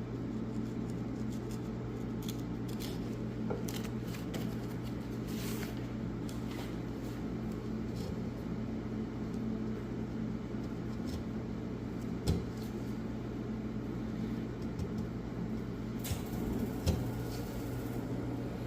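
Wood chisel paring and scraping a maple honey dipper blank: scattered short scrapes and clicks, with a sharper knock about twelve seconds in and another near the end, over a steady low hum in the background.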